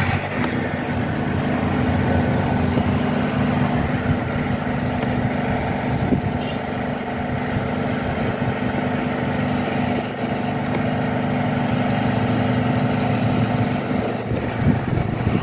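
A steady engine hum, a motor running at an even speed throughout, with a faint click or two.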